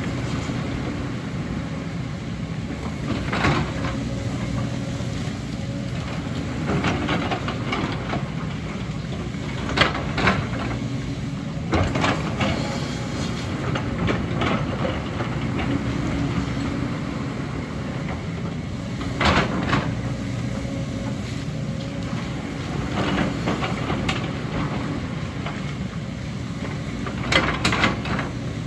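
JCB tracked excavator's diesel engine running steadily under load while it digs, with a scrape or clank of the steel bucket and rocks every few seconds.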